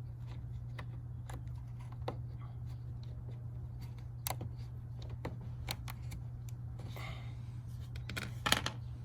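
Small plastic clicks and taps as fuses are worked out of a car's fuse box, scattered through, with a louder cluster of clicks near the end, over a steady low hum.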